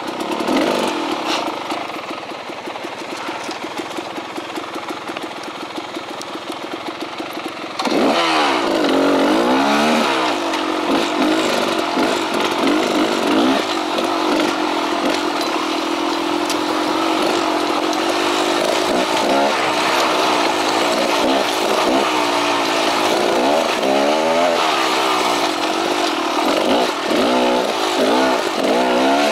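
Beta X-Trainer two-stroke dirt bike engine running at steady low revs, then from about eight seconds in louder, with the revs rising and falling again and again as the bike is ridden along the trail.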